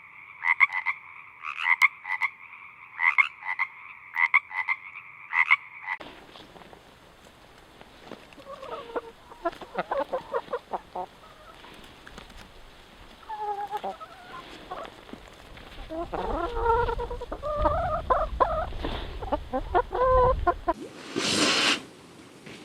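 A frog-like croak repeated in quick pulses, about two a second, for the first six seconds. Then, after a cut, a chicken clucks in short runs over a low rumble, and near the end there is one short, loud burst of noise.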